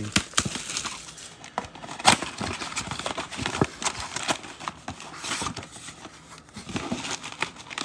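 A cardboard trading card box being opened and its foil-wrapped card packs handled: irregular crinkling and rustling with many small clicks and taps.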